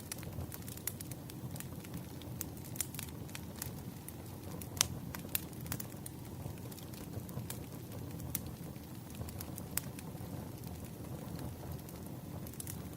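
Firewood burning, crackling and popping at irregular moments over a low, steady rumble of flame, with one sharper pop about five seconds in.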